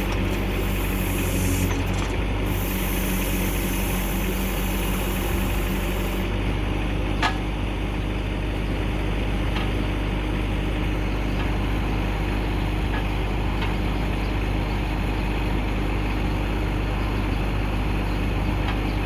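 Bobcat 773 skid steer's turbo-diesel engine running steadily, with a high hiss over it for the first six seconds that then stops. A single sharp click or clank comes about seven seconds in.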